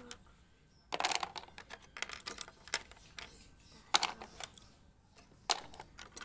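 Wooden pencils clicking and rattling as they are picked up off a table and dropped into a cardboard pencil holder: a series of short clicks and clatters, the loudest about four seconds in.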